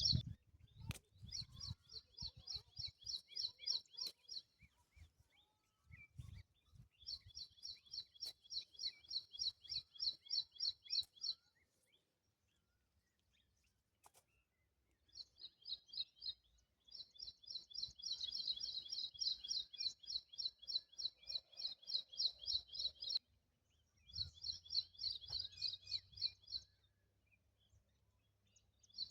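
A bird's high, rapid chirping trill, repeated in bouts of a few seconds with short pauses.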